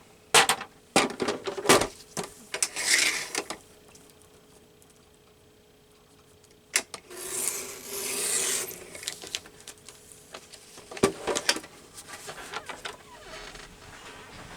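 Paper being handled on a work table: a few sharp taps and clicks, rustling and sliding of a magazine page, with a quiet pause in the middle.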